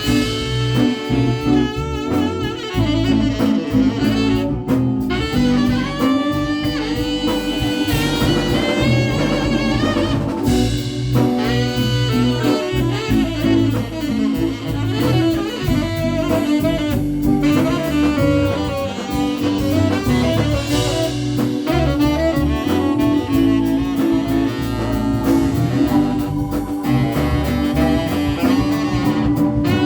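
Band's instrumental break in a blues song: a saxophone soloing over drum kit and a low bass line.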